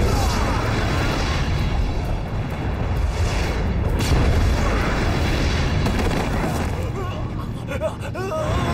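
Dubbed martial-arts fight sound effects: a dense, continuous low rumble of whooshes and impacts, with short shouts or grunts near the end.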